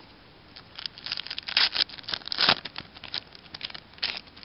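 Foil wrapper of a baseball card pack being torn open and crinkled by hand, a run of sharp crackles with the loudest about one and a half and two and a half seconds in.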